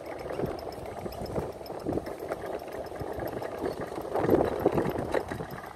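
Go-kart running, heard from the rider's seat: an uneven, rumbling noise that grows louder about four seconds in.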